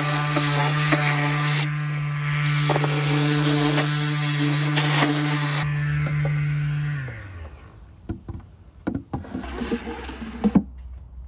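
Handheld electric power tool running steadily, then switched off about seven seconds in, its motor spinning down in pitch. A few sharp wooden knocks follow as the workpiece is handled.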